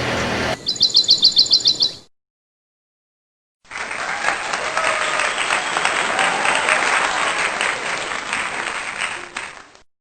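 A quick run of high, evenly spaced chirps, then after a short silence several seconds of clapping applause that cuts off abruptly.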